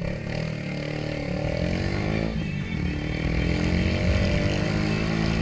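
Haojue Chopper 150 motorcycle's single-cylinder engine and exhaust running under way. The engine note falls over the first two seconds, breaks off briefly, then holds steadier and climbs slightly toward the end.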